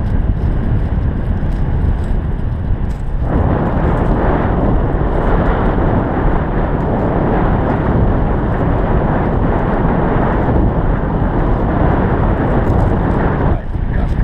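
Loud wind buffeting the camera microphone in paraglider flight: a low rumble that swells into a fuller rushing about three seconds in and eases just before the end.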